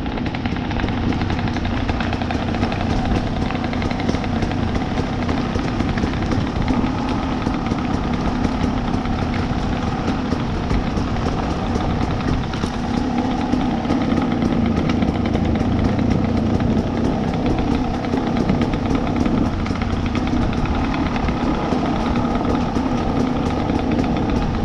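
KTM two-stroke dirt bike engine running steadily at low revs, its pitch staying fairly even throughout.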